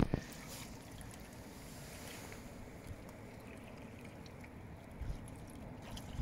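Steady low rush of wind and water at the shoreline, with a few faint thumps, the clearest near the end.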